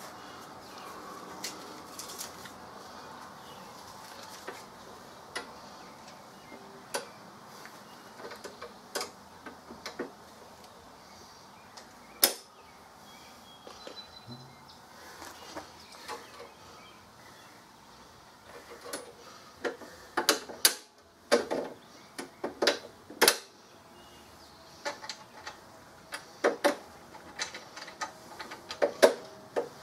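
Scattered clicks, knocks and rattles of metal parts as a push mower's handle is unfolded and fastened to the deck, with a quick run of sharp clicks about twenty seconds in and more near the end.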